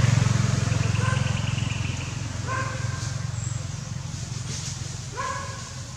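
A steady low motor hum, loudest at first and fading, with two short high whining animal calls, one about halfway through and one near the end.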